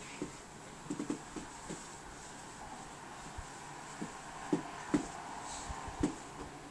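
A baby's short grunts and soft vocal sounds while crawling, a few near the start and more, a little louder, in the second half.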